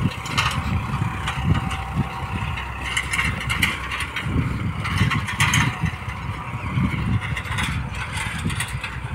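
Farmtrac 60 PowerMaxx 55 hp tractor engine running under load while pulling an 18-disc harrow set fully open, heard from a distance, with uneven low rumbling.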